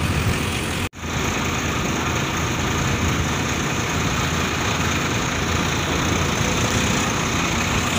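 Tractor's diesel engine running steadily while riding along. The whole sound drops out for an instant about a second in.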